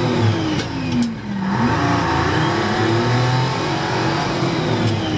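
Truck engine heard from inside the cab under way, its pitch climbing and then dropping twice, about a second in and again near the end.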